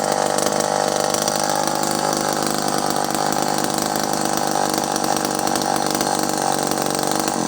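Vintage Pioneer 1200 two-stroke chainsaw engine running steadily.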